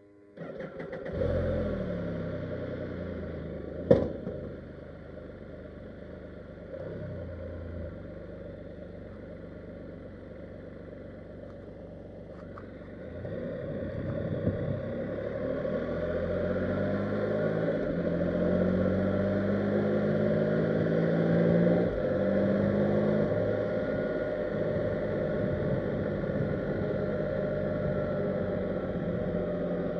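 Can-Am Spyder three-wheeled motorcycle's engine starting about half a second in and settling to an idle, with a sharp clunk about four seconds in. From about 13 seconds the engine pulls away under load, rising in pitch, with a shift near 22 seconds, then runs steadily.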